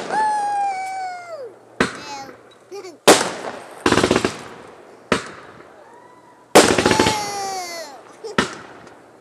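Fireworks display: sharp bangs from bursting shells, a quick run of crackling pops near the middle, and twice a whistling firework whose whistle slides down in pitch for about a second and a half.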